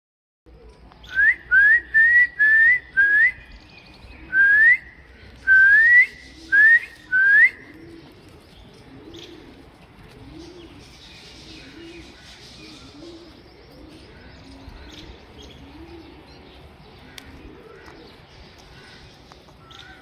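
Alexandrine parakeet giving about ten loud, rising whistled notes in quick succession, ending about seven seconds in. After them, soft low calls from another bird repeat about once a second in the background.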